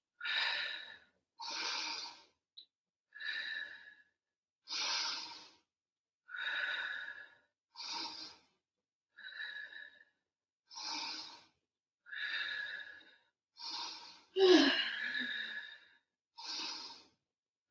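A woman's audible exercise breathing: about a dozen forceful breaths in and out, roughly one every second and a half, paced with kneeling side-plank leg lifts and kicks. One breath near the end is louder and partly voiced.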